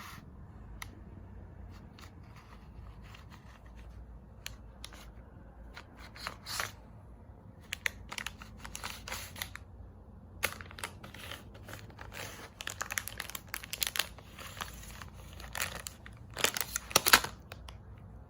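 A cat playing on its own: irregular bursts of crinkling, rustling and scratching with scattered sharp clicks, the loudest cluster coming near the end.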